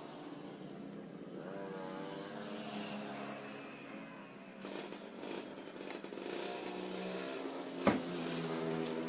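Suzuki Carry pickup's engine running steadily, with one sharp slam near the end as the driver's door is shut.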